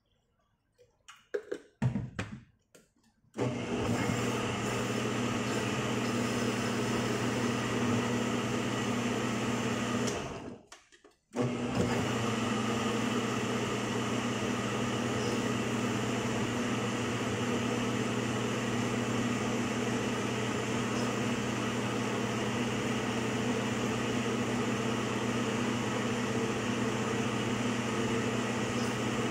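Countertop blender running on a thin liquid mix, with a few handling clicks just before. The motor starts about three seconds in with a steady hum, winds down and stops for about a second near ten seconds, then starts again and runs steadily.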